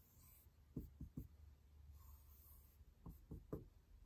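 Faint strokes of a marker pen drawing on a whiteboard: two quick runs of three short strokes, about a second in and again about three seconds in.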